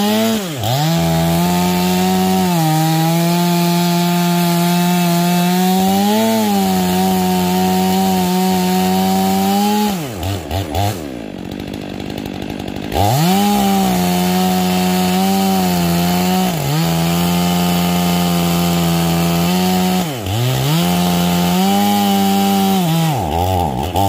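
Two-stroke gas chainsaw at full throttle cutting into a large upright log, its engine note sagging briefly under load several times. About ten seconds in it drops to idle for about three seconds, then revs back up to cut again, and it falls back toward idle near the end.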